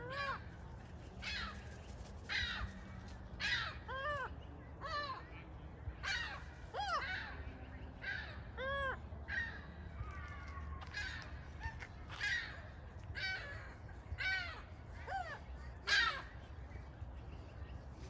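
A flock of gulls calling repeatedly, short harsh arched calls coming about once a second, over a low steady background rumble.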